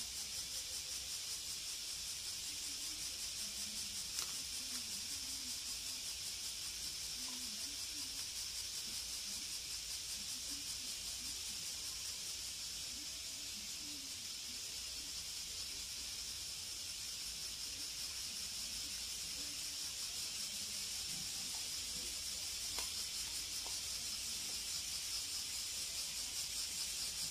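Steady high hiss, with faint scattered soft sounds of a small dog chewing a meat-wrapped jerky treat.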